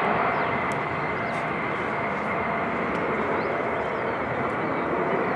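Jet airliner engines running at high thrust for takeoff: a steady loud rush with a thin high whine running through it.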